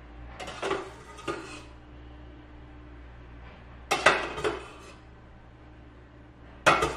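Metal utensils clinking and knocking against a stainless steel pot and its colander insert as pasta is scooped out, in short clattering bursts: a couple in the first two seconds, a louder cluster about four seconds in and another near the end as a metal ladle is handled.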